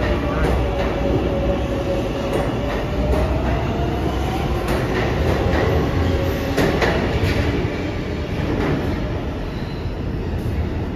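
New York City subway train on the IRT Lexington Avenue line moving through the station, a steady rumble with clicks from the wheels over rail joints. A wavering metallic whine dips and rises in pitch about four seconds in, then fades.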